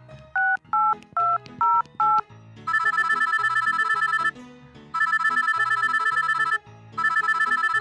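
Mobile phone dialing and ringing: five quick two-tone keypad beeps, then a trilling ringtone in three bursts of about a second and a half each, over soft background music.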